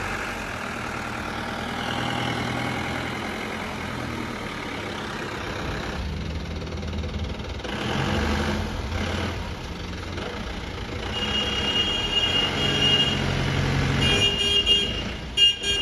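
Road traffic with vehicle engines running, and short repeated high beeps from a vehicle in the last few seconds.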